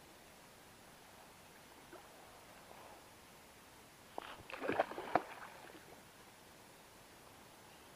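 A released wels catfish splashing at the surface as it bolts away: a short flurry of splashes about four seconds in, loudest near five seconds, over faint background hiss.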